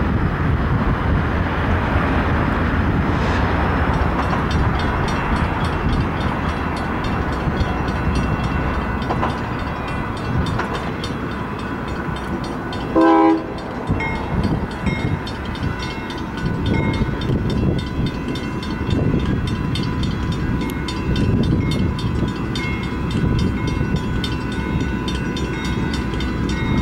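Union Pacific diesel freight train approaching, its locomotive engines and wheels rumbling steadily, while a railroad crossing bell dings over and over. About halfway through, the locomotive horn gives one short, loud blast.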